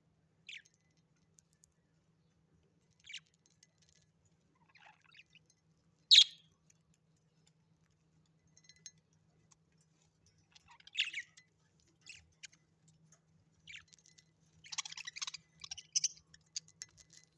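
Birds giving short, sharp high chirps a few seconds apart, one much louder call about six seconds in, then a quick run of chirps near the end.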